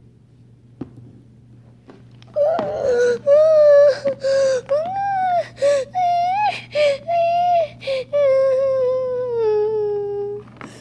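A high-pitched voice making a string of drawn-out, wavering wailing cries in imitation of a monster's screech. The cries start about two seconds in, after a faint click.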